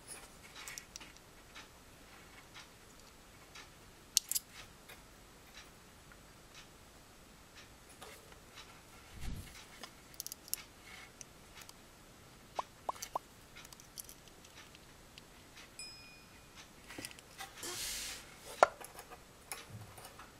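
Sparse small clicks and taps of metal tweezers against a thermal fuse's wire leads and the dehydrator's metal heater bracket as the fuse is positioned by hand, with a short scrape near the end.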